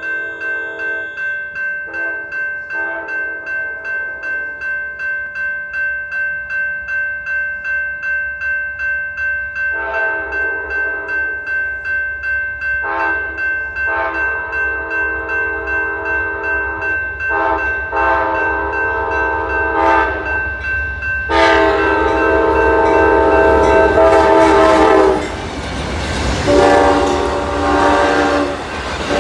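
A grade crossing bell rings steadily at about two strokes a second while an Amtrak locomotive's horn sounds, first faintly in the distance and then as a series of loud blasts as the train nears. In the last few seconds the train passes close by with the rushing noise of its wheels and cars.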